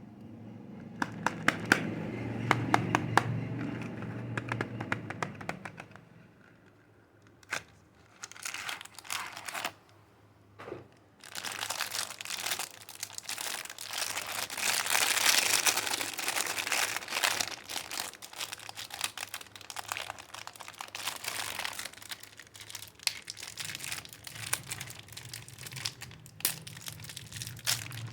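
Soap packaging being unwrapped by hand: wrappers crinkling and tearing, with some clicks and handling noise. After a few quieter seconds early on, the crinkling runs dense and continuous for the second half.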